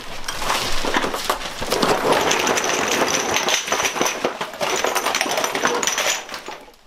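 Spice jars and bottles clattering and clinking against each other as a kitchen drawer full of them is tipped out into a plastic trash bag. The clatter dies away about six seconds in.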